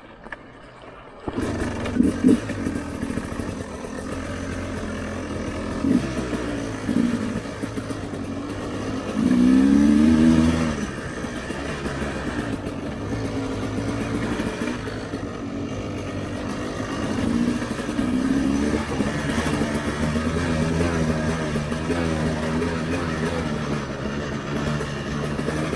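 Dirt bike engine running at low revs, getting louder about a second in, with several short revs; the longest comes about ten seconds in.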